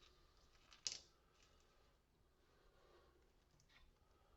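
Near silence with one sharp click about a second in and a few faint ticks: small hard pieces being handled on a workbench.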